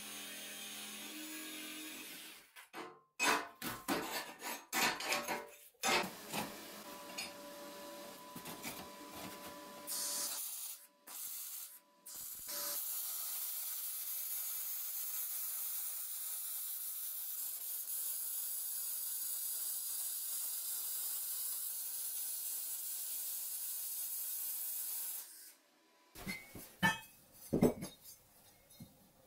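Metalworking in several short takes: a DeWalt jigsaw cutting sheet steel, then knocks and clatter of steel parts, then a long stretch of steady welding hiss. Near the end, light clinks of steel brackets being handled and fitted.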